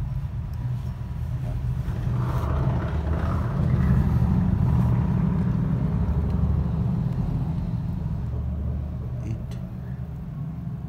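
A steady low rumble, swelling from about two seconds in and easing off toward the end.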